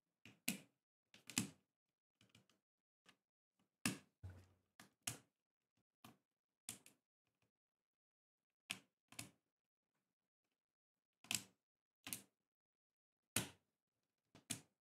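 Sharp plastic clicks and snaps of custom keyboard parts being pressed into place on a Glorious GMMK Pro by hand. About fifteen separate clicks, unevenly spaced, some in quick pairs.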